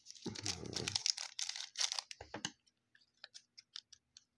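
Crinkling and tearing of a plastic trading-card pack wrapper, with rapid clicks and rustles of cards being handled; the busiest handling is in the first couple of seconds, then scattered clicks.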